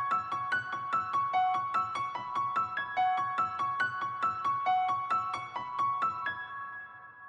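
Background music: a gentle piano melody of short, quick notes, about four a second. The notes stop about six seconds in and the last ones ring away.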